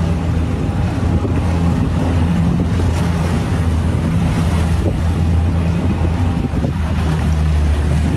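A boat motor running steadily at speed, with a low, even hum, together with wind noise on the microphone and the rush of water and waves.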